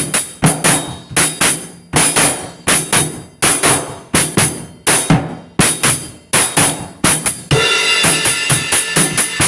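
A drum beat of kick, snare and bright cymbal or hi-hat hits in a steady, busy rhythm. About seven and a half seconds in, a sustained ringing wash enters under the hits and holds.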